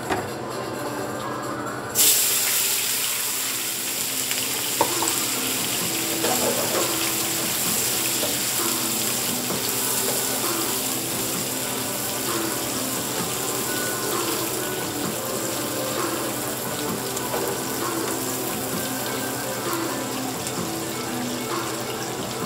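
Sliced bell peppers and scallions dropped into a pan of hot oil about two seconds in, then frying with a loud, steady sizzle as they are stirred. Background music plays underneath.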